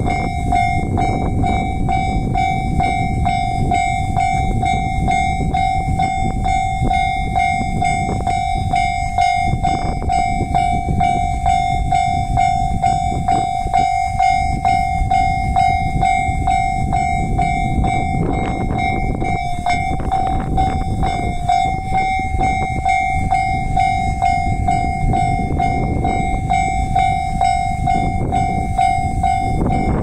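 Japanese railway level-crossing alarm sounding, a steady electronic bell tone repeating rapidly without a break, over a steady low noise.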